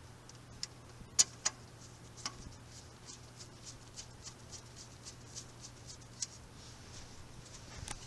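Phillips screwdriver driving a screw into the painted steel leg brackets of a washtub stand: a few sharp metal clicks about a second in, then a regular light ticking, about three a second, as the driver is turned.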